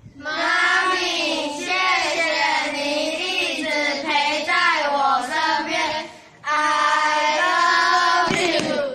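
A group of young children's voices in unison: one long sung phrase of about six seconds, a brief break, then a shorter phrase that cuts off just before the end.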